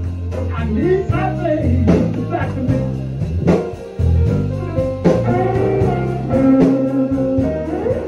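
Background music with a plucked guitar over sustained bass notes.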